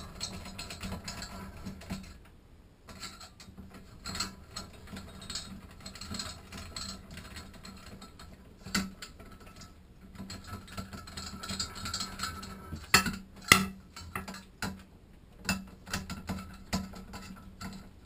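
Screwdriver backing out a long Phillips screw from a shower valve's brass trim plate: a run of small irregular metallic clicks and scrapes, with two sharper clicks about two-thirds of the way through.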